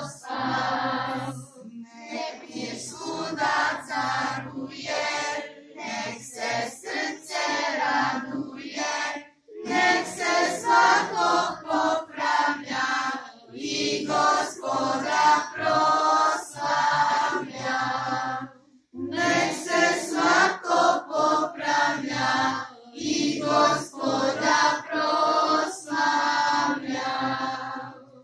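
A group of children and women singing a song together, with two short breaks between verses about 9 and 19 seconds in.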